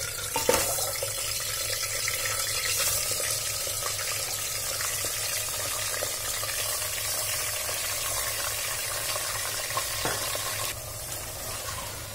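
Raw beef shank pieces sizzling in hot oil in an aluminium pressure cooker: a steady hiss, with a sharp knock about half a second in as a piece goes in. The hiss drops away shortly before the end.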